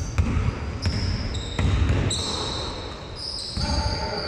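Basketball in play on a court: the ball bouncing, several thumps, with short high-pitched squeaks of shoes on the floor.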